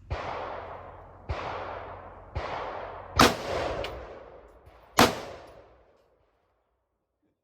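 An AR pistol firing five single shots at uneven intervals, the last two the loudest, each trailing off slowly. The shooter thinks these rounds are more powerful than his earlier ones.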